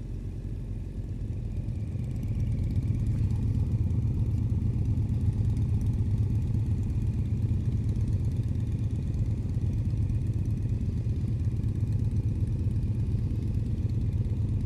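Motorcycle engine running, picked up by a helmet-mounted action-camera mic as a steady low rumble that grows louder about two seconds in and then holds.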